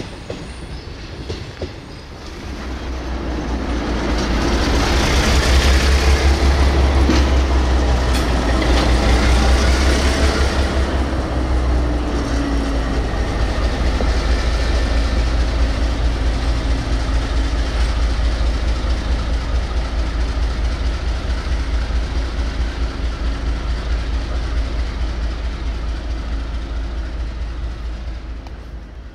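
A 1956 ALCO S6 switcher locomotive's diesel engine running with a steady deep drone as it hauls a freight train past. It grows loud a few seconds in and fades near the end. During the loudest stretch, hiss and a few wheel clicks over the rail joints mix in.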